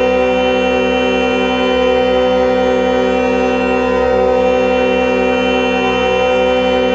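Many horns blaring together in one long, unbroken, steady chord, with one tone pulsing about three times a second. This is typical of the horns and sirens sounded across China to mourn the earthquake victims.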